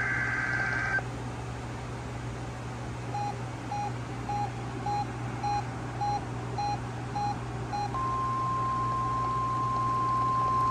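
NOAA Weather Radio alert signals: a buzzy, warbling SAME digital header burst ends about a second in. Nine short electronic beeps follow, about 0.6 s apart. Then, about 8 s in, the steady single-pitch 1050 Hz warning alarm tone starts and holds.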